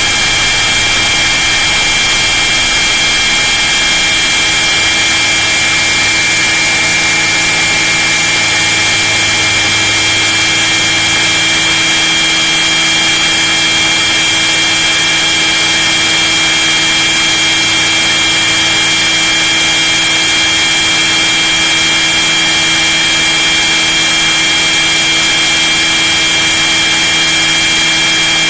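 Radio-controlled scale model helicopter's motor and drivetrain running in flight, heard from inside the fuselage: a loud, steady high whine over a hiss. The low hum underneath shifts pitch about twelve seconds in.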